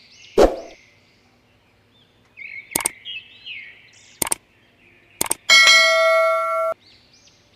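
Subscribe-button animation sound effects: a short thump at the start, three sharp mouse clicks, then a ringing notification-bell ding of about a second that cuts off abruptly. Faint bird chirps sound underneath.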